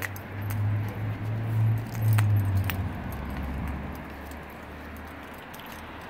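Dog walking on a leash: light metallic jingling of the leash and collar hardware with a couple of sharp clicks, over a low rumble on the handheld camera's microphone that is strongest in the first three seconds and then eases off.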